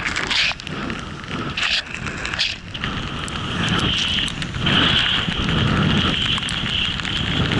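Snowboard sliding fast through fresh powder snow: a steady rushing hiss of snow under the board that grows louder and brighter about halfway through, with wind rumbling on the microphone.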